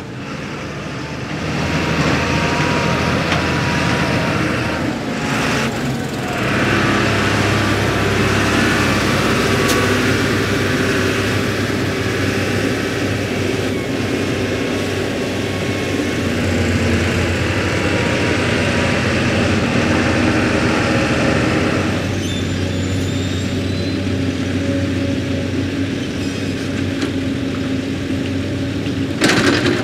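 Heavy diesel machinery running steadily: Fendt Vario tractors hauling dumper trailers and a Komatsu PC 210 LC hydraulic excavator loading them. A brief loud burst of noise comes near the end.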